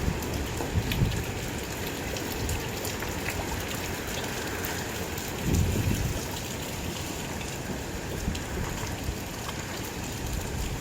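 Steady rain from the storm bands of Hurricane Ian, weakened to a tropical storm, falling with a fine patter of drops. Its gusty wind brings a brief low rumble about five and a half seconds in.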